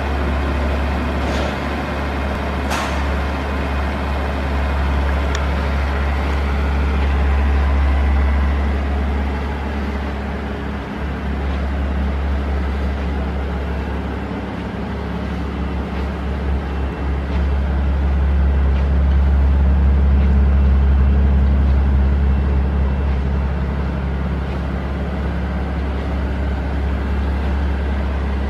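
Mercedes-Benz SL600's twin-turbo V12 idling with a steady low rumble, a couple of light clicks in the first few seconds.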